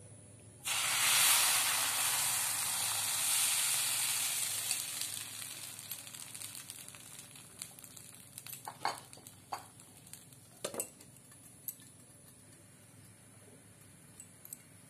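Rice-and-milk pancake batter hitting a hot nonstick frying pan, which starts sizzling loudly at once about a second in, then slowly fades over the next several seconds as the batter sets. A few light knocks follow.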